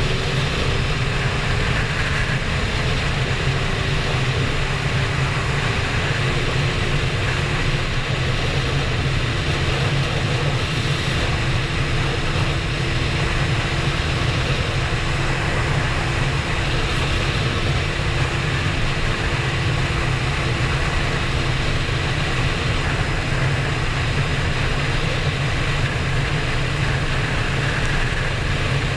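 Sport motorcycle engine running steadily at cruising speed, recorded from the bike itself, with wind rushing over the microphone. The engine note holds nearly constant, easing slightly a few seconds in.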